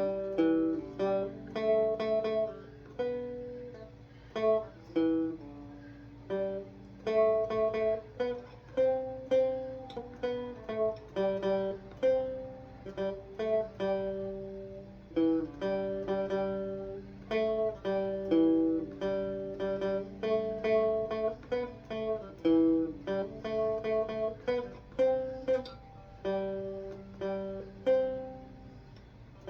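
Three-string cigar box guitar played with a pick through an amplifier: a simple melody of single plucked notes, each sounding and fading, the phrase repeating, over a faint amp hum.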